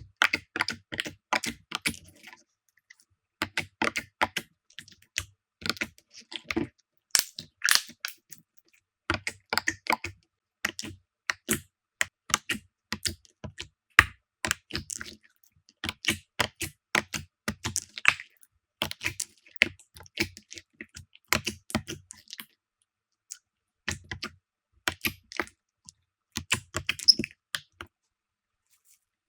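Slime being squeezed and poked by hand, making quick runs of crisp clicks and pops with short silent gaps between them.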